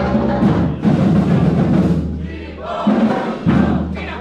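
A marching band of brass and drums playing a parade tune, with a sustained low bass line from the sousaphone under the horns and drums. The low notes drop out briefly about two seconds in, come back, and the playing dies away near the end.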